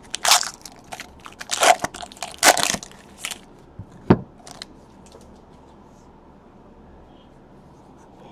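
Foil wrapper of a trading-card pack being torn open and crinkled: several crackling rustles over the first three seconds, then a single sharp tap about four seconds in as the cards are handled.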